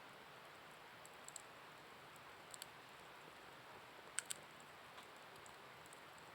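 Wood fire crackling faintly over a low steady hiss, with scattered sharp pops, the loudest a quick pair about four seconds in.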